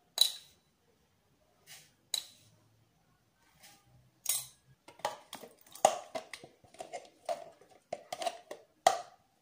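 A metal spoon clinks sharply against a glass sugar bowl a few times as sugar is spooned out. From about five seconds in comes a quick run of scrapes and taps as a spoon scoops sour cream out of a plastic tub.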